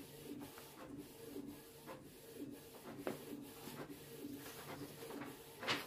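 Canon Pixma inkjet printer printing: a faint, rhythmic whirring and rubbing of the print-head carriage, repeating about twice a second, with a sharper click near the end.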